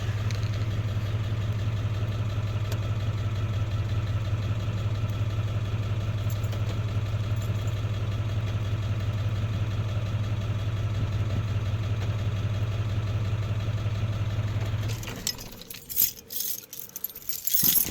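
A 1999 Ford Powerstroke 7.3-litre V8 turbodiesel idling steadily: the rough, loping idle that the owner is trying to diagnose, with the check-engine light on. About fifteen seconds in, the engine sound cuts off suddenly, followed by a few sharp rattles and knocks.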